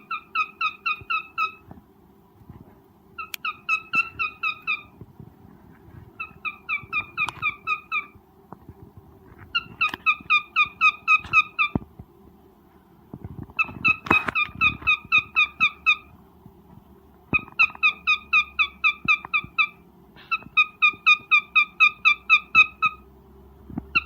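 Cockatiel mating call: runs of quick, evenly repeated chirps, about eight a second, each run lasting a couple of seconds, starting again every few seconds.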